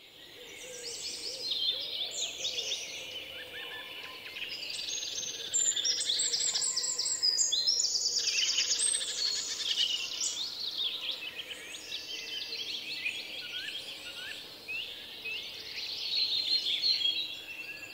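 Many songbirds singing at once, with overlapping chirps and fast trills. The sound fades in at the start and out near the end.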